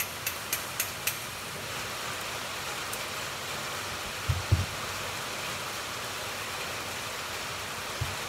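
Small hammer tapping the barrel wedge of an 1851 Navy revolver back into place: a few light metallic taps in the first second, then two duller knocks about four seconds in. Under it runs the steady hiss of rain on the metal building.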